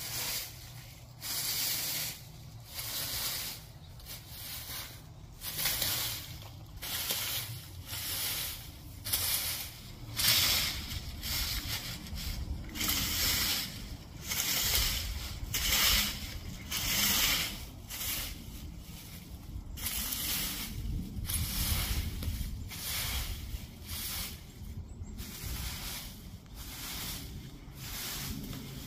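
Rake scraping and rustling through dry leaves and grass in repeated strokes, about one a second.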